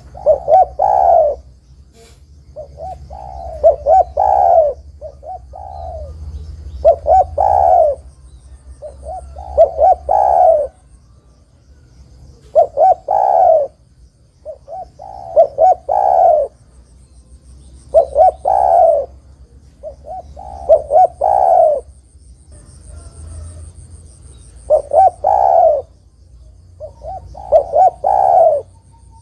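Spotted dove (derkuku) cooing: the same phrase of several coos repeated about every two to three seconds, the loud, full call used to lure other spotted doves into answering.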